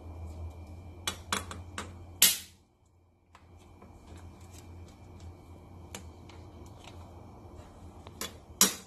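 Back of a cleaver knocking on crab claws on a wooden chopping board, cracking the shells: a quick run of four sharp knocks about a second in, then two more near the end. A low steady hum runs underneath.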